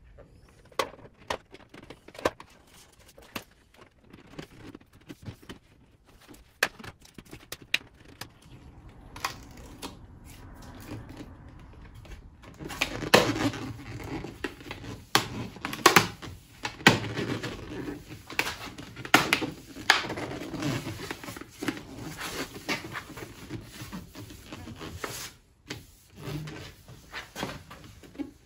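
Hands pressing and rubbing a stick-on plastic mirror cover onto a car's wing mirror: scattered clicks, taps and scraping, busier and louder from about halfway through.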